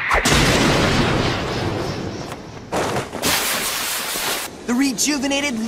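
Anime fight sound effects: a heavy hit lands with a sudden boom, and its rushing noise dies away over a couple of seconds. A second loud rushing blast comes about three seconds in and lasts over a second, as a body is driven back across the ground.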